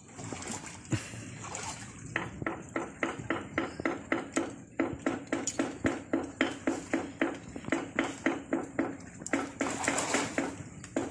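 Rhythmic splashing of a girl swimming in a pool, her kicks slapping the water about three times a second, with a short break midway.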